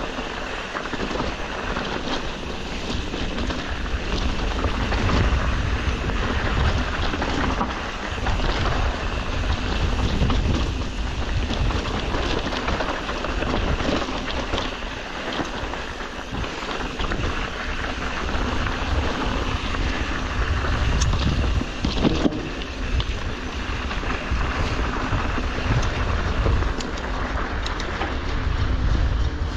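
Mountain bike ridden over rough dirt trail: wind rushing over the microphone with a steady rumble, and the bike rattling and knocking over bumps all the way through.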